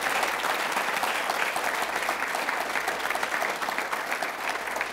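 Audience applauding: many hands clapping together in a dense, steady patter that eases off slightly near the end.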